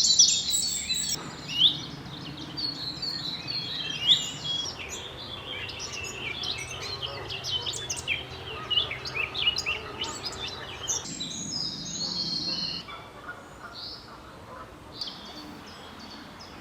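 Woodland bird chorus: many songbirds singing and calling over one another in quick high chirps and trills. It thins out to a few scattered calls over a fainter background about two-thirds of the way in.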